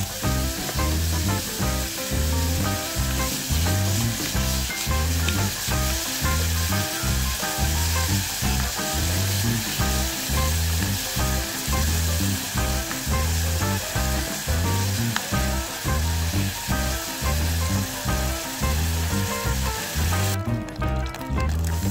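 Cubed beef sizzling as it sears in hot oil in a nonstick pot, turned now and then with a spatula. The sizzle cuts out shortly before the end. Background music with a steady beat plays throughout.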